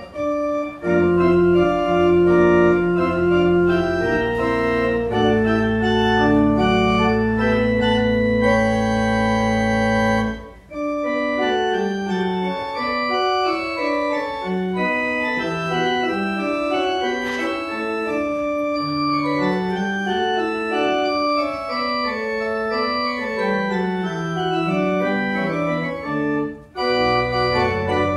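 Organ music: held chords over sustained low bass notes, then after a brief break about ten seconds in, quick running passages of short notes over a lighter bass, with another short pause near the end.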